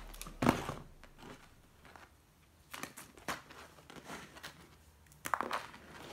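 Plastic LEGO Technic pieces clicking and tapping against a hard tabletop as they are handled. There is one sharp click about half a second in, a few lighter taps in the middle, and a quick cluster of clicks near the end.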